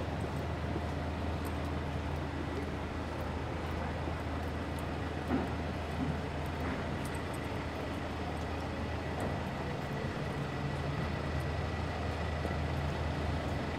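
Street traffic with the steady low hum of a vehicle engine running nearby, and a couple of faint knocks about five and six seconds in.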